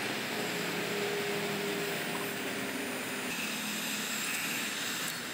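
Handheld electric heat gun running steadily, its fan blowing hot air onto a car badge to soften the adhesive behind it.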